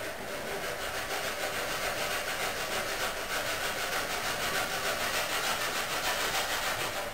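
Sleeping English Cocker Spaniel breathing fast and raspily as it dreams, in a quick, even rhythm.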